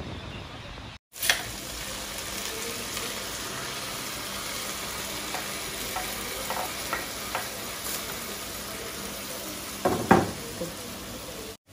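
Small beach clams (hoi siap) sizzling as they stir-fry in a steel wok, with the clink and scrape of a metal spatula against the pan. The clatter is loudest about ten seconds in.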